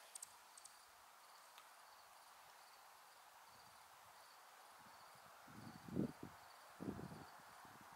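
Faint insect chirping: a short, high chirp repeating evenly a couple of times a second over quiet background hiss. Near the end come a few low, muffled bumps, louder than the chirping.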